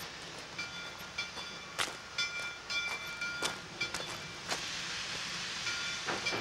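Steam locomotive approaching from a distance: a steady rushing noise with short high tones coming and going and scattered sharp clicks.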